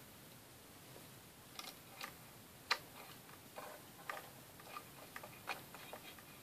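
A handful of faint, scattered clicks and taps as blown fuses with a resistor tacked across each are pushed by hand into the amplifier board's fuse clips, the sharpest click near the middle.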